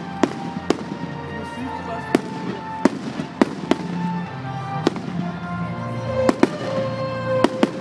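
Fireworks display: aerial shells bursting with sharp bangs and crackles, about a dozen reports at irregular intervals. The display's accompanying music plays underneath.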